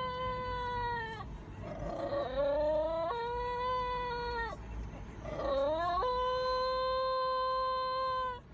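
A pet howling. It gives three long wails, each held at a steady pitch for a second or more, with short rising cries between them.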